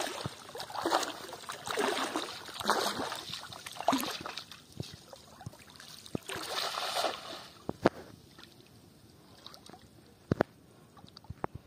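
Bare feet wading through shallow flood water, splashing with each step. About six seconds in, a thrown cast net lands on the water with a longer splash. After that the water goes quieter, with a couple of sharp knocks.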